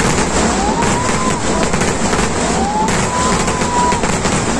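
Fireworks display: a dense, continuous barrage of crackling bangs and explosions. Twice, about two seconds apart, a whistle rises in pitch and then holds as a shell climbs.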